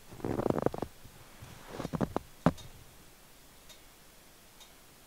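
Footsteps crunching in fresh snow: a few short, crisp crunches in the first two and a half seconds.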